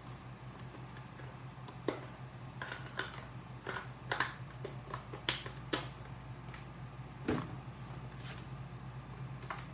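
Irregular sharp clicks and taps of small hard objects being handled, about a dozen of them, with a duller knock about seven seconds in, over a steady low hum.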